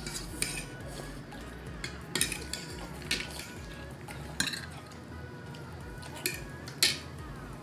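Cutlery clinking against plates while eating, about six sharp clinks spread a second or so apart, the loudest near the end, over faint background music.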